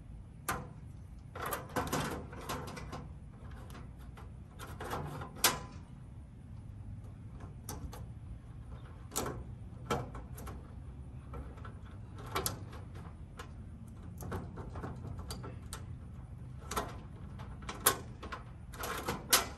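Irregular clicks, knocks and rattles of hand work on an AC condenser while its fan motor is being removed, coming in scattered clusters over a steady low hum.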